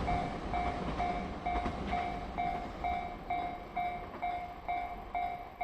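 Level-crossing warning bell ringing an electronic ding about twice a second, over the fading rumble of the passing M250 Super Rail Cargo electric freight train.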